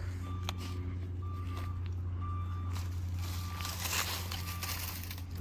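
Vehicle reversing alarm beeping about twice a second over the steady low drone of an idling engine; the beeps stop near the end.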